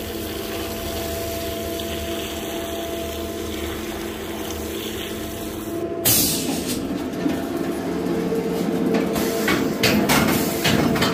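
Sawdust-handling machine running with a steady motor hum. About six seconds in, the sawdust conveyor with its newly replaced chain-and-slat flights starts to sound, its chain rattling and clanking as it carries sawdust up, with a cluster of sharper clanks near the end.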